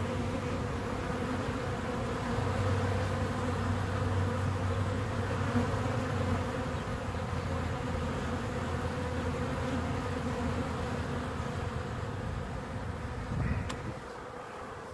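Honeybees buzzing in a crowd at a busy hive entrance: a steady hum of many wingbeats, dropping away near the end.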